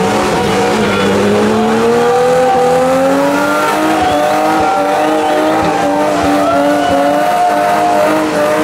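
Car engine held at high revs throughout, its pitch creeping slowly upward, while spinning tyres squeal: a wheelspin run such as a burnout or drift.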